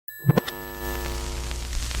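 Television static starting up: two sharp pops just after the start, then a buzzing tone that fades out within about a second over a low hum, while the hiss of static builds.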